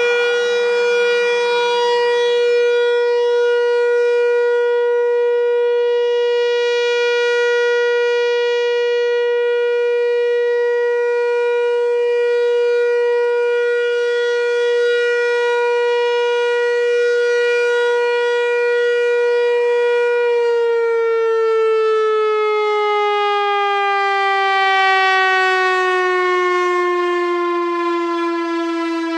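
Whelen WPS-4004 electronic warning siren sounding its steady Alert tone. About two-thirds of the way through, the pitch starts to glide slowly downward.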